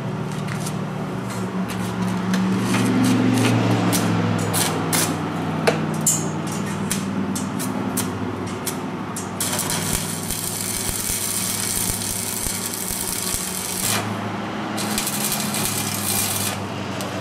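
Stick (arc) welding on a steel tube frame. A steady low hum with a few clicks as the rod is set in the electrode holder, then the arc crackling and hissing from about halfway in, with a short break before a second run near the end.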